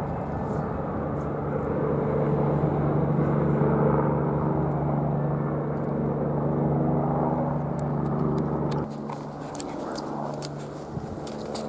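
Helicopter flying low overhead: a steady engine hum over a fast, even beat of the rotor blades. About nine seconds in, the sound drops suddenly to a fainter hum, with a few sharp clicks.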